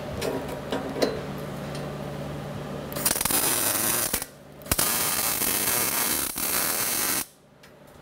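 Wire-feed (MIG) welder arc welding a rolled steel ring to a steel base plate. A steady low hum with a few light clinks, then about three seconds in a weld of about a second, a brief pause, and a second, louder-stretch weld of about two and a half seconds that cuts off sharply near the end.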